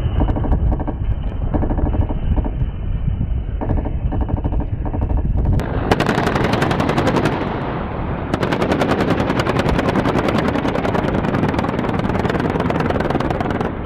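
Attack helicopter's rotor and engine running with a steady beat, then an abrupt change about six seconds in to rapid automatic gunfire: a short burst, then a long sustained burst lasting several seconds.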